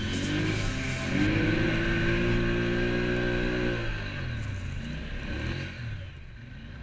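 ATV engine under throttle, rising in pitch about a second in, holding steady, then backing off about four seconds in and fading away.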